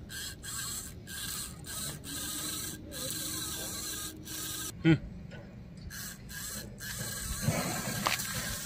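Small electric motor and gearbox of a miniature model tractor whirring as it pulls a loaded trolley, the whirr cutting out briefly again and again. A short loud knock comes about five seconds in.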